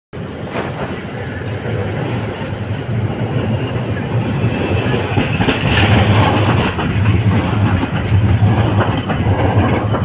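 Red-and-white articulated city tram passing at close range, its wheels rolling on street rails with a steady low motor hum that grows louder from about halfway through.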